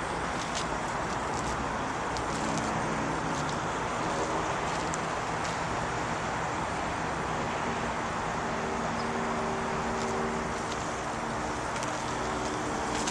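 Rheem 3-ton package heat pump running: a steady rush of fan air with faint wavering hums underneath and a few light ticks.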